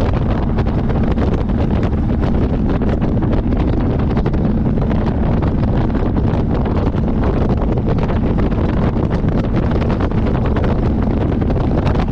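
Wind rushing over the microphone of a camera on a moving motorcycle, steady and loud, with the motorcycle's engine running evenly underneath.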